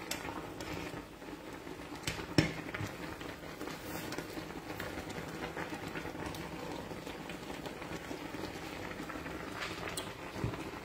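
Noodles boiling in a steaming saucepan with a steady bubbling. A few sharp knocks come over it, the loudest about two seconds in and another near the end.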